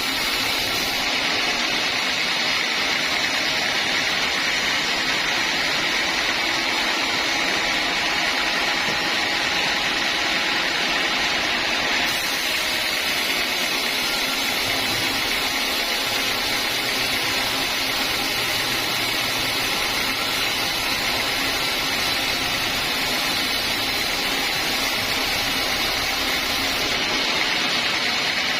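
Sawmill saw running steadily through timber, a continuous even machine noise with no pauses.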